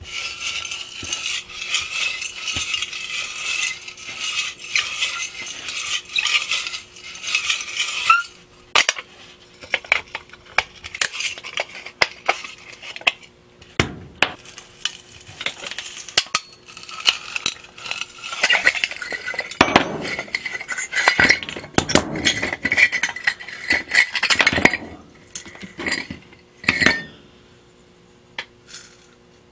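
Pliers gripping and twisting a corroded rod on a mud-encrusted brass lamp part: grating metal-on-metal scraping and clinks in two long stretches, with scattered clicks between, and a few light taps near the end.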